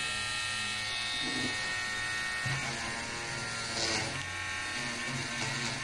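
Mini cordless rotary tool running with a steady whine as it drills a small hole, its tone shifting slightly partway through as the bit bears on the material.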